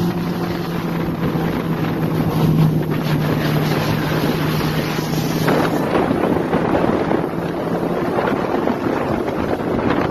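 Motorboat engine running at high speed with a steady drone, towing an inflatable ring, under the rush of its wake spray and wind buffeting the microphone. About halfway through the rushing water and wind grow louder and the engine's drone fades beneath them.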